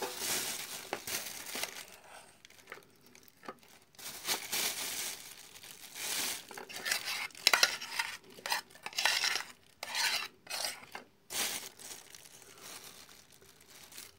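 Irregular handling noises of fish bait and its utensils: clinking, scraping and stirring sounds with some rustling, in uneven bursts.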